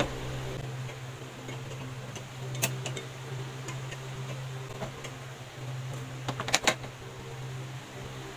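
A steady low hum, with a sharp click about two and a half seconds in and a quick cluster of clicks a little after six seconds, as a gas stove's burner knob and igniter are worked.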